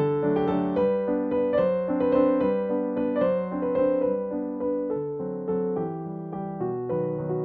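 Background piano music: a slow melody of sustained notes over soft chords.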